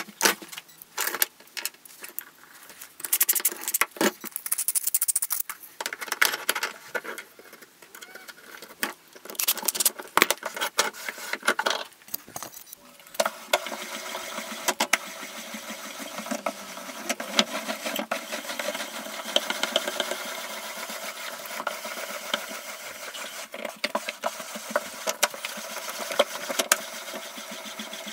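Scattered knocks and clatters, then from about 13 seconds in a steady rattling whir with rapid clicks: the shop-built plywood vise's M20 threaded steel screw turning as its wooden handle is spun, running the front jaw along its steel guide rods.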